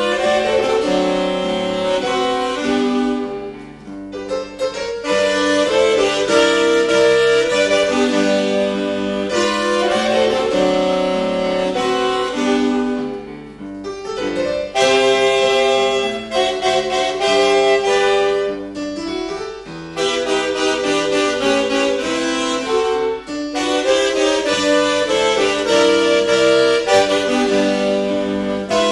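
Three saxophones playing a tune in harmony over piano accompaniment, with a few brief breaks between phrases.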